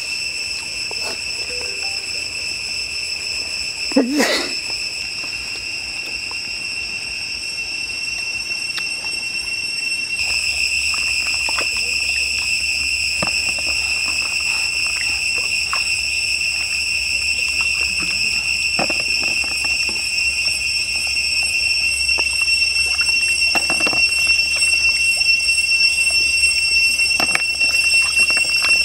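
Steady high-pitched insect drone, with scattered clicks and knocks of snail shells being handled in bamboo baskets. A louder thump comes about four seconds in.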